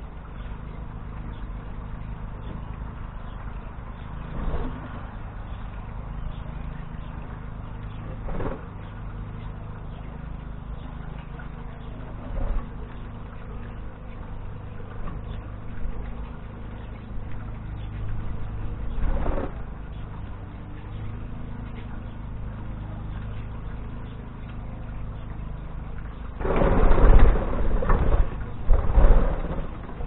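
Budgerigars' wings whirring in a loud flurry, in two bursts near the end, as the flock flies up off the aviary floor. Under it a steady low background hum.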